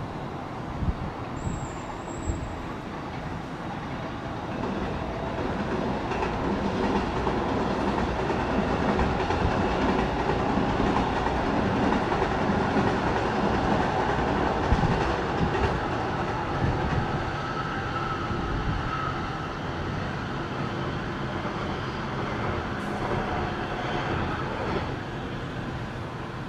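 A train passing along the line. Its sound builds from about four seconds in, is loudest in the middle and eases off over the last several seconds.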